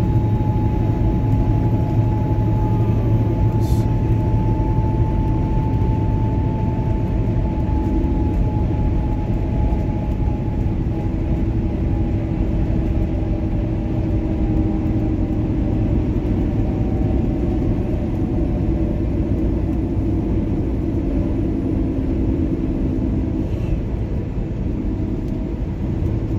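Steady engine drone and tyre noise inside a moving vehicle's cabin, with a low hum and a higher whine that slowly drops in pitch.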